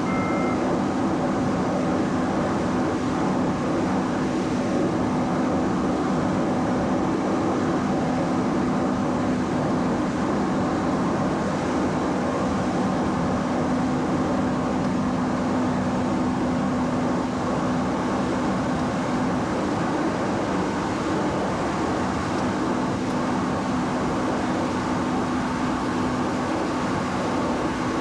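Cessna 208 Grand Caravan's single Pratt & Whitney PT6A turboprop and propeller running steadily in flight, an even drone with a constant low hum.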